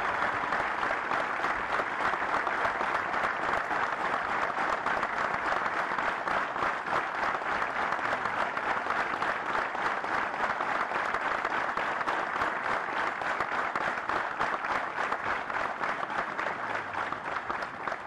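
Sustained applause from a large crowd of many people clapping, steady throughout.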